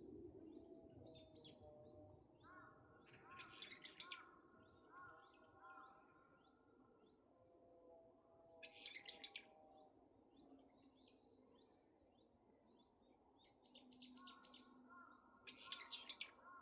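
Wild mountain birds singing, faint: short bursts of high, rapid chirps come four or five times, and between them runs of lower, clear whistled notes repeat several times in a row.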